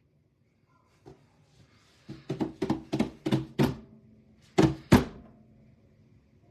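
A run of about seven quick knocks on a hard surface, followed by two louder knocks.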